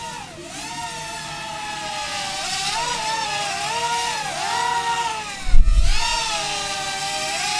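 Fly Blocks DIY hexacopter drone in flight, its six small motors and propellers whining, the pitch rising and falling as it manoeuvres. A dull low thump about five and a half seconds in.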